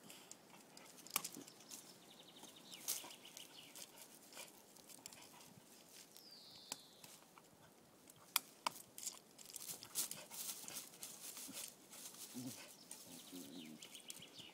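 A dog's claws scratching and scrabbling on tree bark as it rears against the trunk, a run of sharp irregular scrapes and clicks. A bird chirps briefly, with a short falling call about six seconds in.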